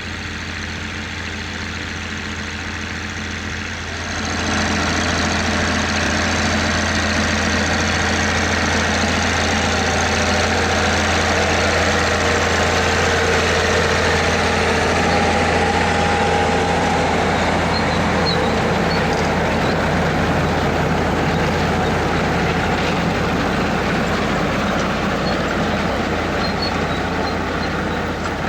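MB-Trac tractor's diesel engine running steadily with potato-harvesting machinery working behind it. About four seconds in the sound gets louder, with more rattle and clatter over the engine hum.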